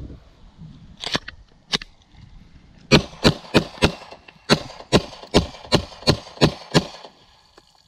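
A mud-caked Glock 17 9mm pistol, just pulled from a creek, firing into the water: two sharp cracks a little over a second in, then about a dozen shots in quick succession, roughly three a second, which stop shortly before the end. The pistol is still working after lying in the creek.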